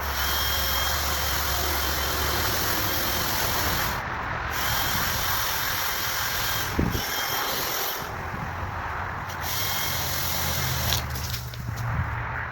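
Makita 18Vx2 LXT brushless 16-inch battery chainsaw cutting through wood, the chain running steadily with a faint high whine and easing off briefly a few times as the trigger is let go.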